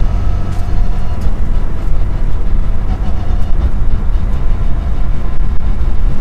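Mitsubishi Lancer Evo 6's turbocharged four-cylinder engine running, with road noise, as a loud steady low rumble heard from inside the car. A few faint clicks sound over it.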